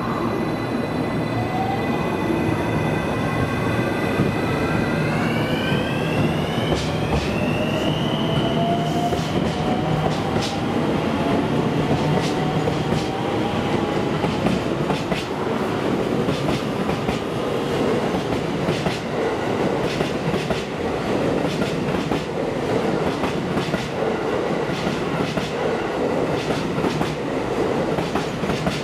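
JR West 223 series 1000 electric train pulling out: its inverter and traction motors whine, rising in pitch over the first several seconds as it accelerates. Then its wheels click over rail joints, more and more often as the cars pass, over a steady rumble of running gear.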